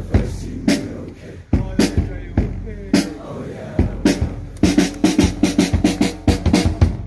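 A large crowd of schoolboys performing a school war cry: massed rhythmic chanting punctuated by sharp percussive hits, quickening past the halfway point into a fast even run of about six hits a second.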